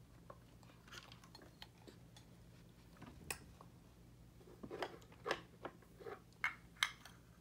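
Faint, scattered clicks and taps of makeup pencils, compacts and brushes being handled at a plastic toy vanity, coming more often and louder in the second half, over a low steady hum.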